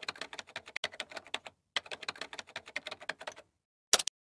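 Rapid computer-keyboard keystrokes as a typing sound effect, in two quick runs of about a second and a half each with a short pause between, then a sharper double click near the end.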